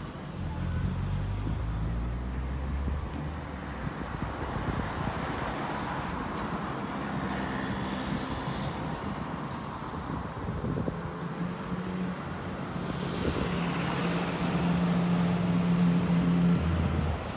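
City road traffic: motor vehicles running and passing, with a steady low engine hum that grows louder over the last few seconds as a heavier vehicle runs close by.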